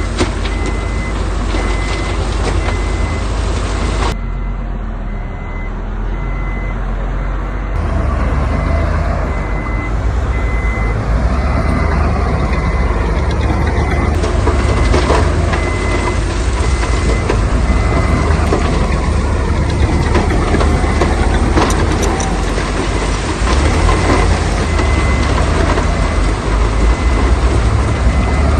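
Heavy diesel construction machinery running, with a reversing alarm beeping at a steady rate.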